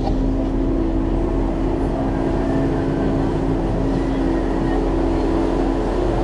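Canal tour boat's engine running steadily, a low drone heard from inside the glass-roofed cabin.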